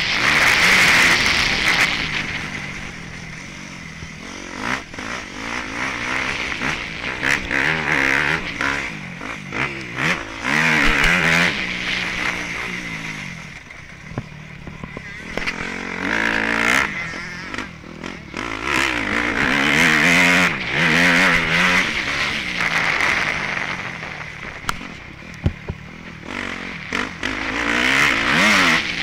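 Dirt bike engine revving up and dropping back again and again as it is ridden hard over a dirt track, with scattered knocks.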